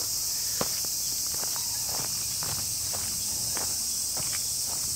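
A steady, high-pitched chorus of cicadas with irregular footsteps, a few light crunches and knocks a second, from someone walking on a dirt path while holding the recorder. The sharpest knock comes just over half a second in.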